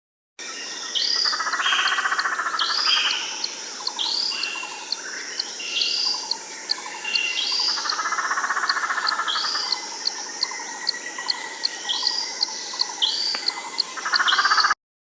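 A dense chorus of birds calling: a short, high hooked chirp repeats about once a second over buzzy trills and quick ticking notes. The chorus cuts off abruptly near the end.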